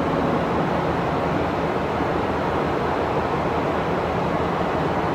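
Two-car KiHa 40 diesel railcar train pulling away, its engine running steadily under an even hiss of noise.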